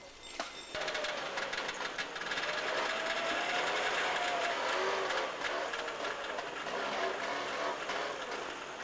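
A small engine running with a fast mechanical rattle, its pitch rising a little and then dropping about halfway through.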